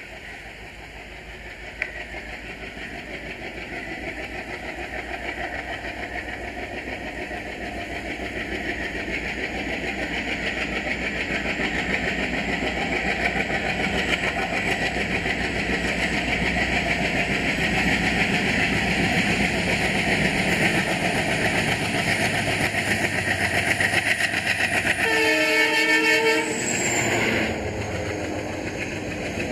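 ALCO diesel locomotive hauling a passenger train, its engine and the rail noise growing steadily louder as it approaches. About 25 seconds in it sounds its horn, one blast of several tones lasting a second and a half. The level then drops near the end.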